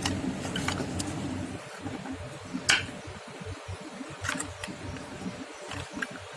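Handling noises of a die-cast toy car's packaging: scattered light clicks and taps, with one louder sharp click a little under three seconds in, over a low steady rumble.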